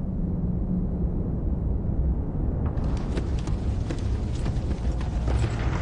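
Deep, steady rumble of an active volcano, joined about three seconds in by rapid crackling and popping as glowing lava spatters from the vent.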